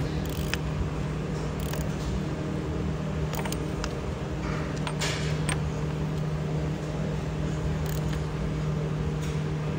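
A steady low mechanical hum with a pitched drone, and a few scattered light metallic clicks and clinks from the socket and tools as the engine's crankshaft is turned over by hand.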